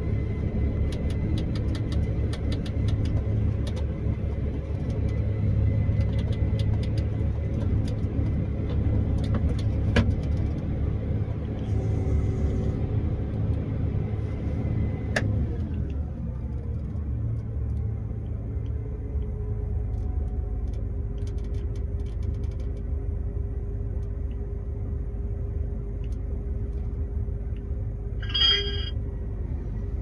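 Combine harvester engine and machinery running, heard from inside the cab. About halfway through a click is followed by the engine note dropping and settling lower, and near the end comes a short high-pitched chirp.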